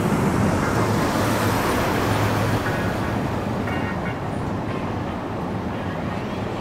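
Steady road traffic noise, with a low engine hum that eases after about two and a half seconds.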